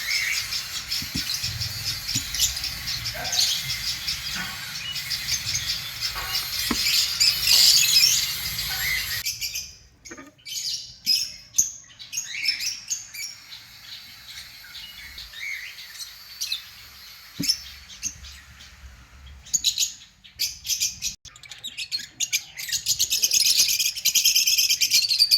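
Lovebirds chirping, a dense run of high chirps that thins to scattered chirps after about nine seconds, then thickens again near the end.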